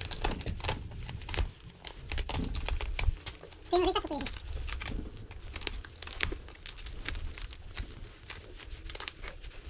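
Rapid crinkling and crackling with many sharp clicks, with a short burst of voice about four seconds in.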